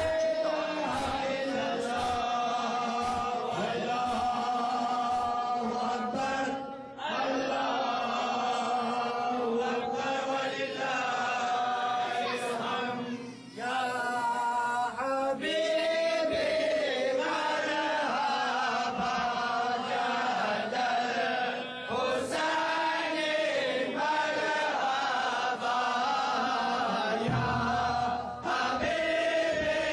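Group of men chanting a devotional chant together in a Sufi gathering, voices rising and falling in long phrases. Sharp strikes come about twice a second in the first few seconds.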